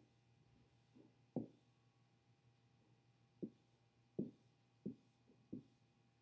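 About seven soft, dull taps of a stylus on a touchscreen as divider lines are drawn one after another, with near quiet between them.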